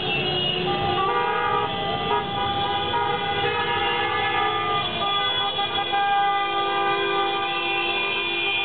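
Many car and scooter horns honking at once, overlapping tones of different pitches starting and stopping over the running of scooter and car engines: a celebratory horn chorus from a motorcade.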